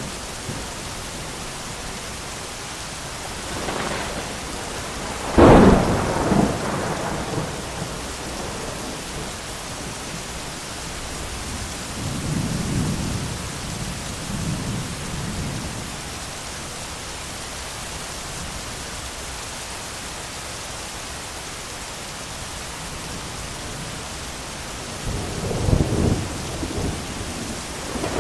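Steady heavy rain with thunder: a sudden loud close clap about five seconds in that rolls away over a couple of seconds, softer low rolls of thunder around halfway and near the end, and another loud clap breaking right at the close.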